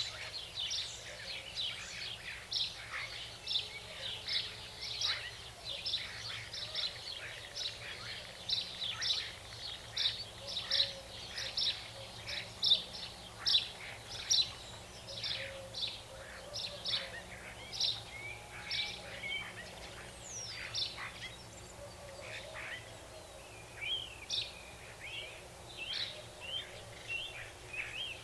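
Outdoor nature ambience of small songbirds chirping: a dense, continuous run of short, high chirps, about two a second, over a faint steady low background hum.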